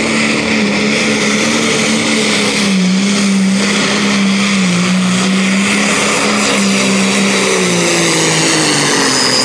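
Light-limited pro stock pulling tractor (a John Deere 5020) running its diesel engine at full throttle down the track, one loud steady engine note. About five seconds in the pitch dips slightly, and over the last couple of seconds it sags lower as the engine speed falls under the sled's growing load.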